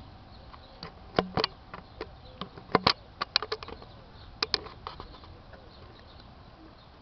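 A string of sharp, irregular taps and clicks, about fifteen over some four seconds and loudest near the start, over a faint steady background hiss.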